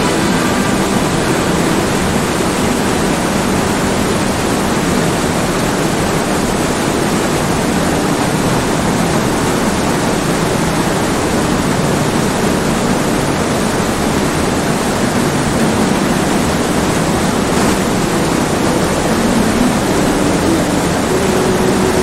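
Steady rushing wind and road noise from riding in the back seat of a moving Jeep, loud and even throughout.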